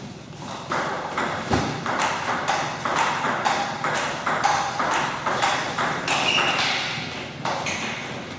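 Table tennis balls striking bats and the table during rallies: a rapid, irregular run of sharp clicks.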